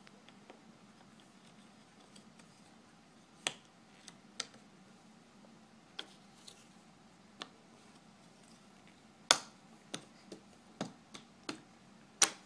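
Cardboard jigsaw puzzle pieces being handled and set down on a wooden tabletop: scattered sharp clicks and taps, about a dozen, growing more frequent in the second half, with the two loudest about nine seconds in and just before the end.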